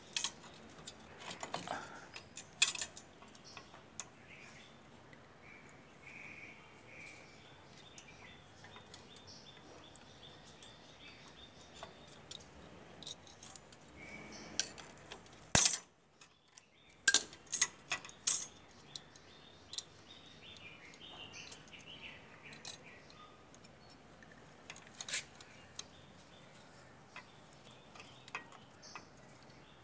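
Metallic clicks and clinks as the brake shoes, return springs and a screwdriver are handled on a Bajaj three-wheeler's rear drum brake, with one sharp knock about halfway through followed by a quick run of clicks.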